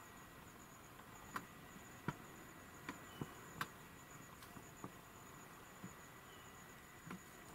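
Faint steady chirring of insects, with about half a dozen soft, irregular crunches, a whitetail buck's hooves stepping on leaf litter close by.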